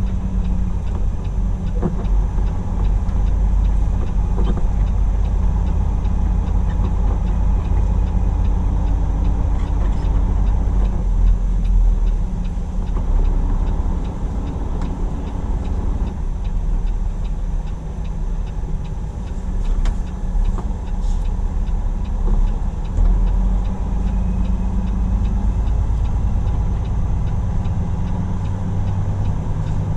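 Semi truck's diesel engine running with a steady low rumble while the truck is maneuvered slowly into a parking spot, dipping briefly in loudness about halfway through.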